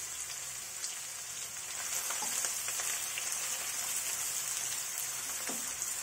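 Freshly added chopped onions frying in hot ghee in a kadhai, sizzling with a steady hiss.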